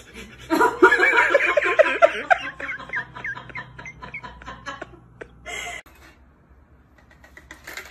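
A rapid run of short, pitched vocal sounds, several a second, that fade out over about three seconds. A short burst follows just after five seconds.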